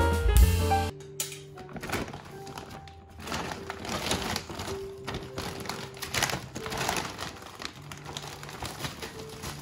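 Loud jazz music with piano and bass cuts off about a second in. After that, packaging rustles and crinkles in irregular bursts as items are handled, over soft background music.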